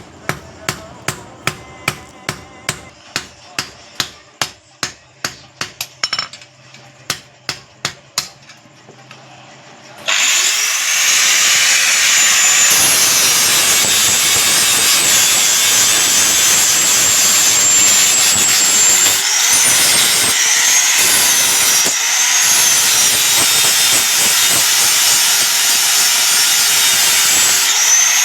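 Hand hammer striking steel about three times a second, then an electric grinder starts about ten seconds in and runs steadily on the steel, its whine dipping now and then as it bites.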